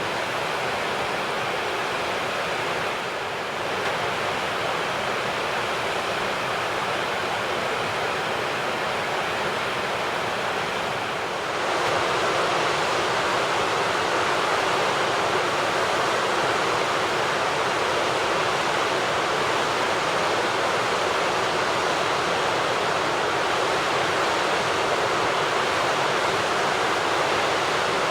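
Steady rush of flowing water, with no bird calls heard over it; it grows a little louder about a dozen seconds in.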